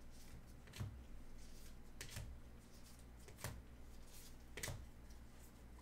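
Trading cards in rigid plastic top loaders handled by gloved hands: faint rustling, with four or five sharp plastic clicks as the cards are swapped.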